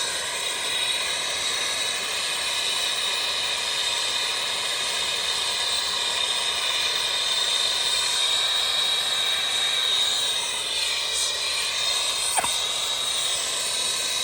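Newly installed A.O. Smith gas-fired water heater being run up to temperature near 140 degrees: a steady hiss with a thin high whistle running through it.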